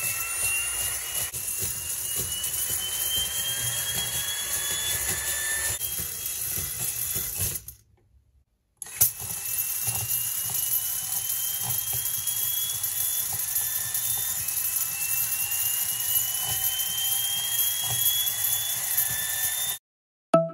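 Miniature turbofan engine model running, its fan spinning with a steady whir and a high whine, and a tone that rises slowly in pitch several times over. The sound drops out for about a second partway through and stops just before the end.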